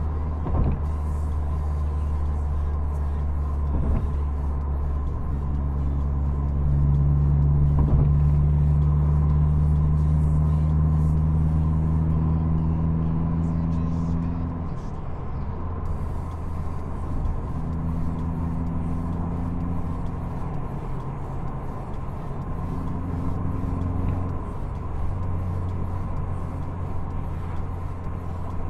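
Inside the cabin of a moving Subaru Impreza 2.0 GX: the flat-four engine's drone mixed with road noise, growing louder from about five seconds in and easing back down about halfway through.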